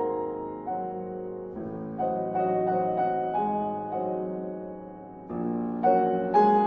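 Piano music: notes and chords struck and left to fade, with a softer passage partway through and louder chords near the end.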